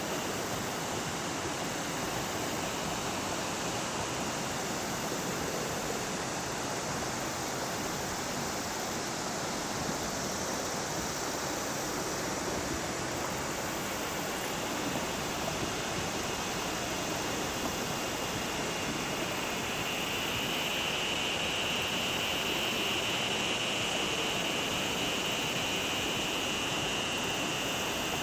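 Steady rush of flowing river water, swelling slightly about two-thirds of the way through.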